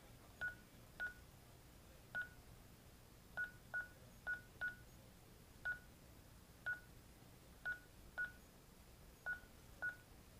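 Honeywell LYNX Touch L5200 alarm panel's touchscreen beeping once for each key press as a Wi-Fi security key is typed in: about thirteen short beeps, all at the same pitch, at an uneven typing pace.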